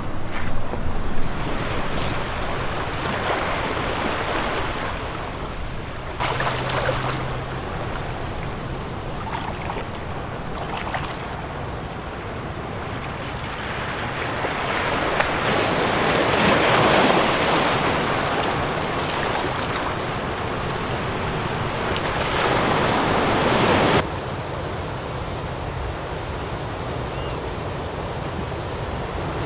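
Ocean surf washing in among rocks, a steady rushing that swells to its loudest about halfway through, with wind on the microphone.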